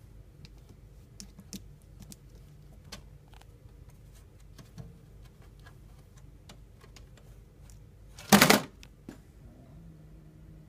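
Cat sounds: light scattered clicks and taps, then about eight seconds in a short loud hiss, followed near the end by a low steady growl.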